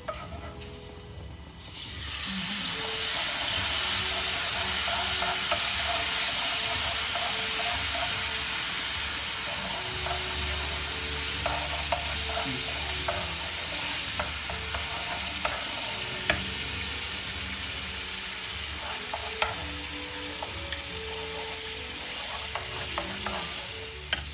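Canned tomatoes going into a hot oiled frying pan: a loud sizzle starts suddenly about two seconds in and goes on as steady frying that slowly eases off, while a wooden spatula stirs and scrapes the pan. A few sharp taps of the spatula on the pan near the middle.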